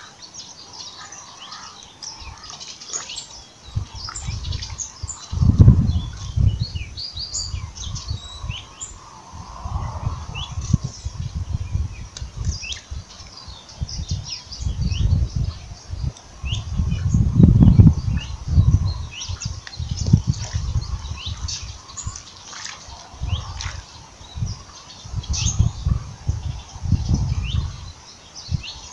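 Small birds chirping in many short, high calls throughout, over repeated low rumbling buffets that are loudest about five and a half and seventeen seconds in.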